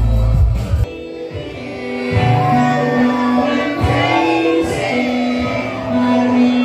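Live concert music with singing. The heavy bass drops out just under a second in, leaving long held sung notes over lighter backing.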